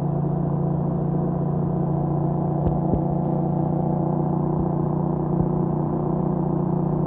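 Tractor-trailer's diesel engine held on the compression-release (valve) engine brake in fourth gear while descending a steep grade, giving a steady, even drone at about 1800 rpm.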